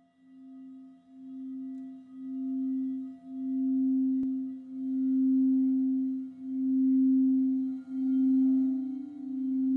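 A quartz-crystal singing bowl ringing one steady low tone that swells and fades about every second and a half, growing louder. A second, slightly higher tone joins near the end.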